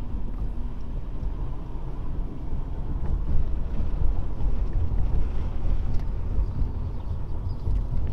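Inside the cabin of a Honda Civic driving along a street: a steady low rumble of road and engine noise, with wind buffeting the microphone.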